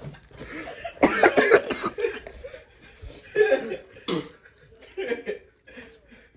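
A man coughing in a series of harsh, separate fits, the loudest about a second in, with some laughter mixed in.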